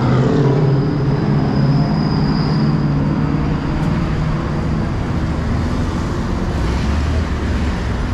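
Busy street traffic heard from above: bus and car engines running and passing in a steady dense rumble, with a low engine drone strongest in the first few seconds. A thin high whine rises briefly about two seconds in.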